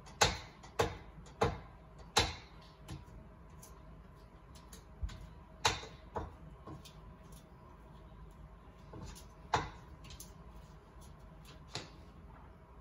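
Spatula knocking and tapping against a stand mixer's metal bowl while scraping down the batter, with about six sharp knocks spread irregularly, four of them in the first two seconds.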